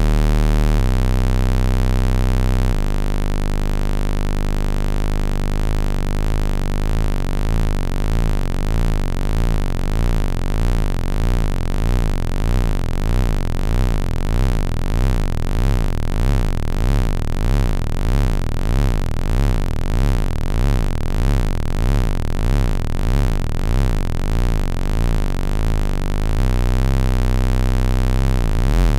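Moog Model D analog synthesizer playing deep, sustained bass notes through an SVS PB-4000 subwoofer. After a couple of note changes, a held tone pulses in a slow, even wobble about once a second. Near the end a steady note returns.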